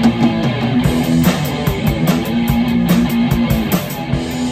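A rock band playing live: electric guitar over a drum kit, with drum and cymbal hits keeping a steady beat.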